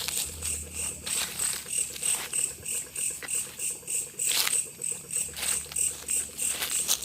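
Crickets chirping in a steady high pulse, about four chirps a second, with a brief rustle about four seconds in.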